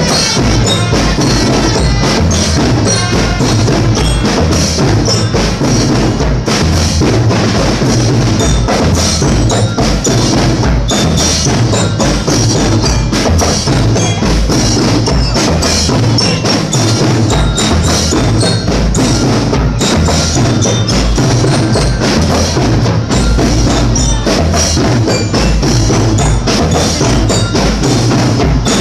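Loud percussion-driven music with a steady beat of drums under bright struck tones, like wood blocks and bells.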